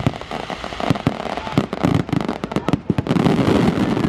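Fireworks display going off: a rapid, dense run of bangs and crackles, many shells bursting in quick succession.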